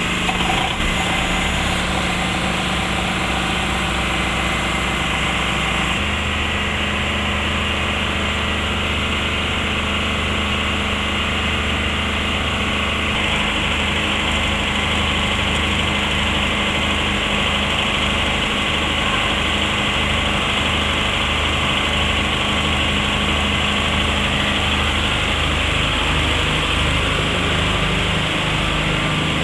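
FAW diesel engine of a 30 kVA generator set running steadily just after a key start, its low tone shifting slightly about six seconds in as it settles.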